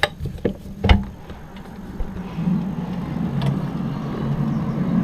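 A few sharp clicks and knocks as a window is opened, then a low droning hum from outside that swells in loudness from about two seconds in. This is the unexplained 'strange noise' the resident is showing.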